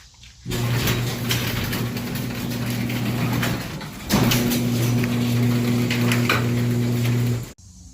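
Garage door opener's electric motor running with the door rattling along its track: a steady hum with clattering that starts about half a second in, falls off briefly near the middle, starts again and cuts off suddenly near the end.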